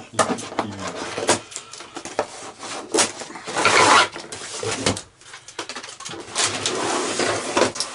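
Plastic packing straps being snipped with scissors and pulled off a cardboard box: a run of sharp clicks and snaps, with scraping and rustling of the straps against the cardboard.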